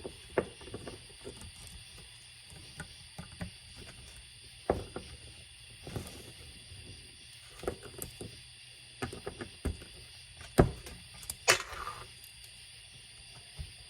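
Scattered small clicks and taps of a small screwdriver and metal carburetor parts being handled while the top cover screws over the diaphragm are removed, with a couple of louder knocks in the second half.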